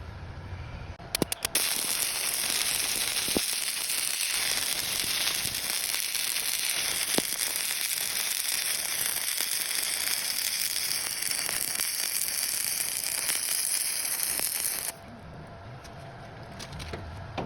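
Electric arc welding: a few short strikes of the electrode about a second in, then the arc catches and crackles and hisses steadily for about thirteen seconds before it is broken off abruptly.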